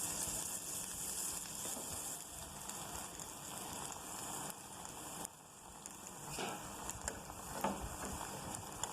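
Paniyaram batter of ground rice, sugar and banana frying in hot oil, a steady sizzle that drops off about five seconds in, with a few faint clicks after that.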